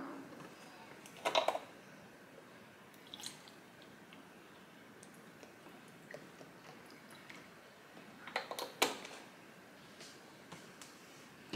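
A cardboard milk carton and an ice-filled glass handled on a stone countertop: a few sharp knocks and rustles, the loudest about a second and a half in and around nine seconds in, with a faint pour of milk over ice between them.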